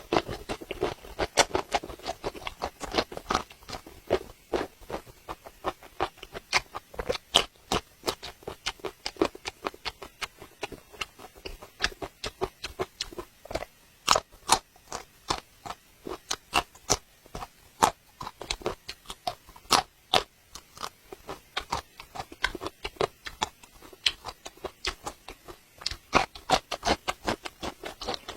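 Chewing and biting of blistered tiger-skin chili peppers: an irregular run of sharp crunches and mouth clicks, several a second.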